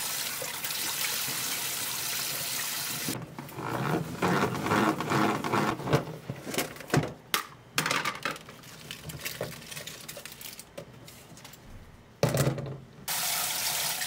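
Kitchen tap running into a bowl of lettuce, then uneven splashing and swishing as hands wash the leaves in the water, with a few sharp knocks against the bowl. The tap runs again briefly near the end.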